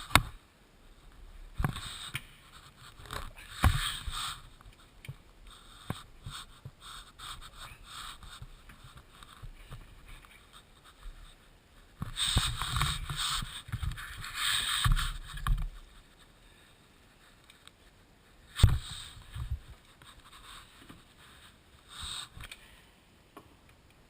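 Hand work on parts: scattered knocks, clicks and scraping, with two rough, noisy stretches of a few seconds each about halfway through. The sharpest knocks come at the very start and about three-quarters of the way in.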